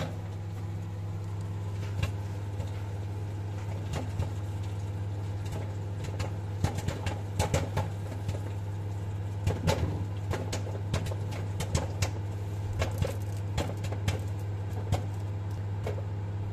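Dawlance microwave oven running with a steady hum while popcorn kernels pop inside it. The pops are scattered at first and come thicker and faster from about six seconds in, as the popcorn nears done.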